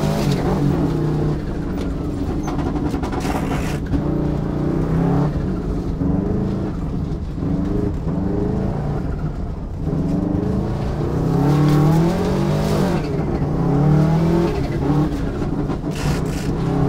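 Turbocharged Subaru EJ22 flat-four of a rally car, heard from inside the cabin, revving hard and changing gear: its pitch climbs, falls back at each shift and climbs again several times. A few short sharp cracks come between the pulls.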